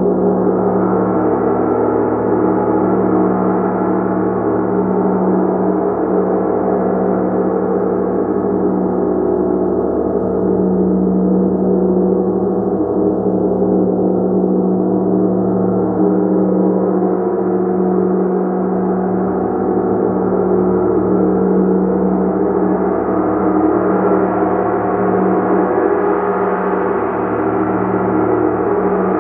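Gong sounding continuously as a dense, sustained wash of many overlapping tones, kept up at a steady loudness with no single strike standing out. The upper shimmer swells a little near the end.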